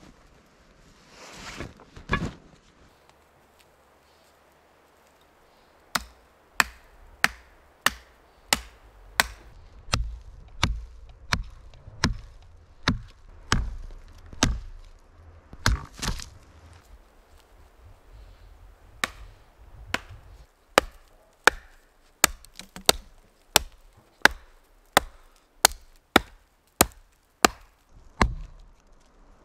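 Hatchet chopping wood: a long series of sharp strikes, about one every half second at first, then a short pause and quicker strikes. A rustle and a thump come about two seconds in, before the chopping starts.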